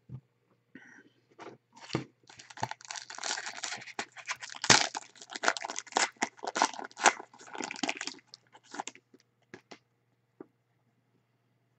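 Foil trading-card pack being torn open and crinkled: dense crackling from about two seconds in until about nine seconds, then a few faint clicks as the cards are handled.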